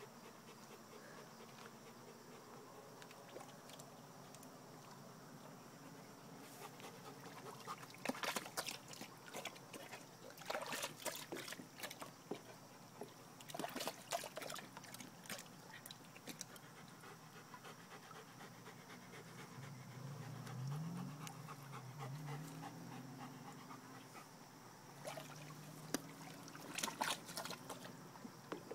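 Bernese Mountain Dog panting while wading in shallow water, with short bursts of splashing as it moves, three times in the first half and once near the end.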